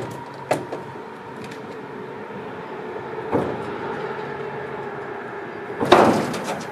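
A steady mechanical hum, with a couple of sharp knocks early, another knock a little after three seconds, and a louder scraping clatter of about half a second near the end.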